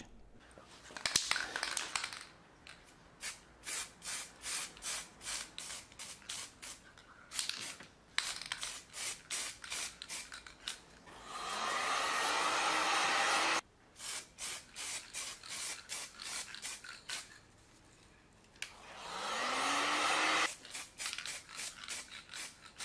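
Aerosol can of primer being shaken, its mixing ball rattling in quick clicks, broken by two rushing bursts of about two seconds each, the first cutting off sharply.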